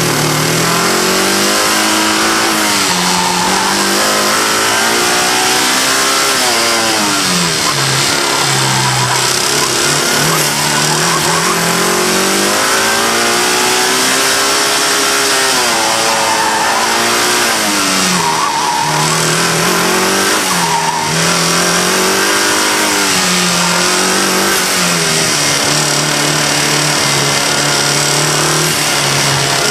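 Car engine heard close up from inside the engine bay, its revs rising and falling several times, with the knock of a failed connecting-rod bearing and a cracked crankshaft, first mistaken for a bad lifter.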